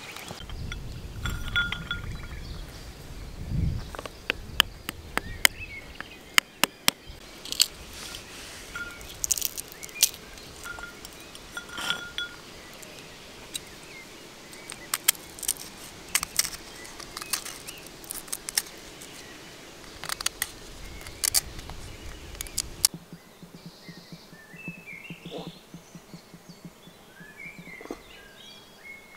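Outdoor ambience with birds chirping and an irregular series of sharp clicks and clinks. About three-quarters of the way through the low background rumble drops away, leaving faint bird chirps.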